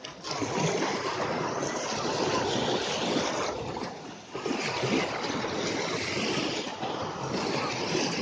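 Sea surf washing onto a sandy beach, a continuous rush that eases briefly about four seconds in, with wind on the microphone.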